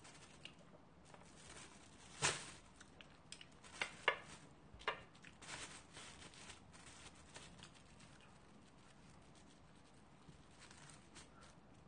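Disposable wooden chopsticks clicking and tapping against paper food cups and plastic containers while eating: a scatter of small, sharp clicks, the loudest about two seconds in, several more between four and six seconds, then only a few faint ones.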